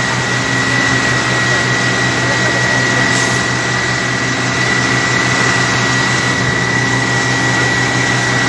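Steady loud engine noise with a constant high-pitched whine over a low hum, unbroken throughout.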